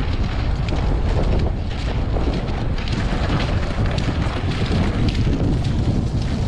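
Wind rumbling on the microphone, with ice-fishing sleds scraping as they are dragged across bare lake ice.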